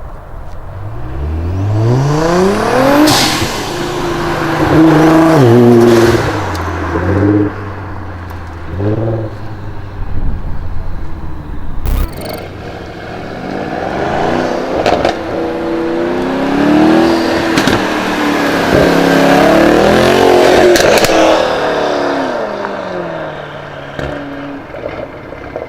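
High-performance car engine revving hard, its pitch climbing steeply from about a second in, then a string of quick rev blips and drops. A sharp crack comes about halfway through, then a second long rev run dies away near the end. A few sharp cracks mark the revving, fitting exhaust pops.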